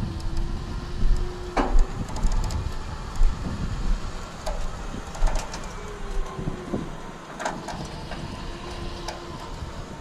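Wind buffeting the microphone, with scattered metal clanks, knocks and a brief creak about one and a half seconds in, as a dead backhoe is dragged up onto a flatbed trailer, its bucket dragging. A faint steady hum runs underneath.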